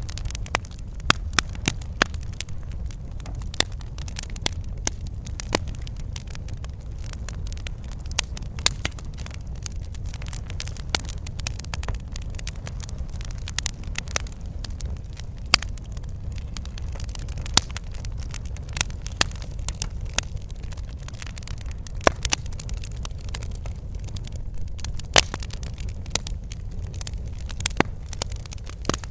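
Wood fire burning in a fireplace: a steady low rumble of the flames with irregular sharp crackles and pops.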